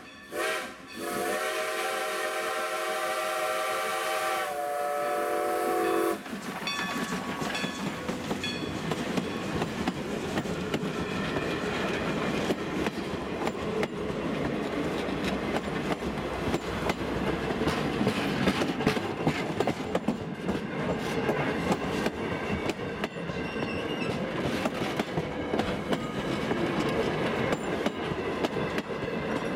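Steam locomotive #90's whistle sounds a short blast and then a long one with several tones at once, cutting off sharply about six seconds in: the short-long close of a grade-crossing whistle signal. Then its passenger coaches roll past, their wheels clicking steadily over the rail joints.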